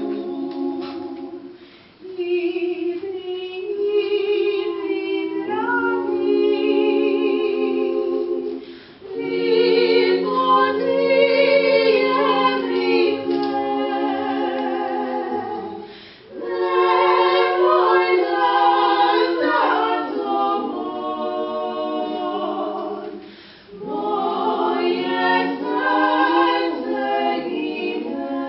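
A women's klapa, five female voices in Dalmatian close-harmony a cappella singing, singing in long held phrases with short breaks for breath between them.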